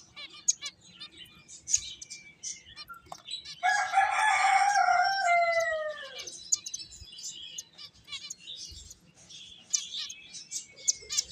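Pet finches chirping in quick, high notes throughout. A rooster crows once about three and a half seconds in: a loud call nearly three seconds long that falls in pitch at the end.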